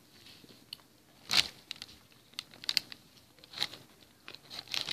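Paper sandwich wrapper crinkling and rustling as it is pulled open, in a series of short irregular crackles, the loudest about a second and a half in.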